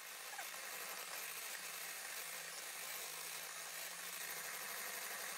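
Electric hand mixer running at a steady speed with a constant hum, its beaters whisking eggs and butter in a stainless steel bowl.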